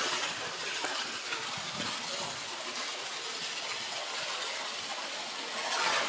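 Steady rush of a waterfall pouring into a pool, with splashing from polar bears swimming through the water, a little louder near the end.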